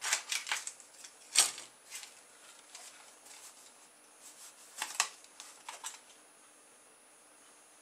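Handling noises: a plastic chopping board and a steel ruler being moved and set down on a cutting mat, giving a few sharp clicks and rustles. The loudest click comes about a second and a half in, and another cluster about five seconds in.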